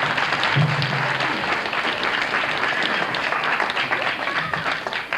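Audience applauding, a dense steady clatter of many hands clapping that starts to die away near the end.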